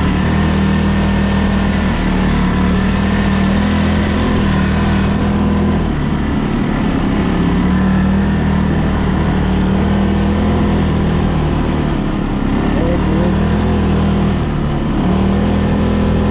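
ATV engine running at a steady pitch while riding off-road, its note dropping briefly three times as the throttle eases off.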